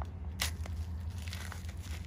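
Chalk being crushed and crumbled by hand, giving irregular sharp crackles and crunches, the strongest about half a second in, over a steady low hum.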